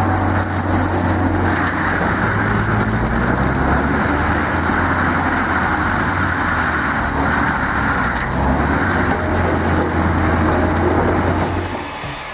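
A 630-horsepower AHWI RT 800 tracked forestry mulcher running hard, its engine drone and rotor noise steady as it chews into a tree stump. The engine note shifts a few times under the load, and the sound cuts off just before the end.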